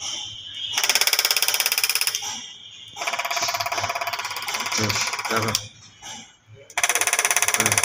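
Electronic diesel injectors being fired on a test bench: rapid, even chattering clicks in bursts of about a second, with short breaks between.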